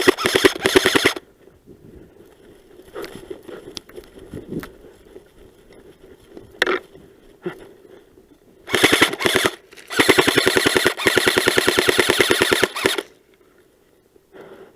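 Airsoft rifles firing on full auto: a short burst at the start, another a little past the middle, then one long burst of about three seconds, with a few lone clicks and pops in between.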